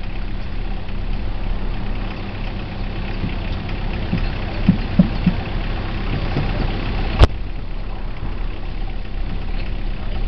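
Coach bus engine idling steadily with a low hum. About halfway through come three quick thumps, then a single sharp click a couple of seconds later.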